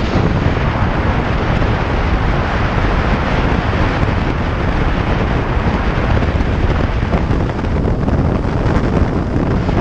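Heavy, steady wind rush on the microphone of a camera mounted outside a car driving at road speed, with road and engine noise underneath.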